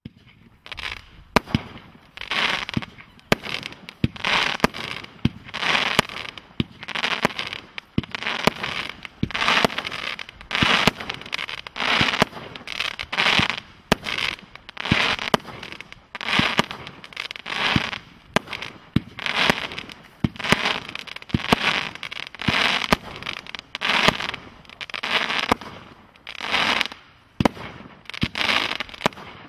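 A 36-shot consumer firework cake firing its shots in quick succession, about one a second. Each shot is a sharp launch bang followed by a short crackling burst.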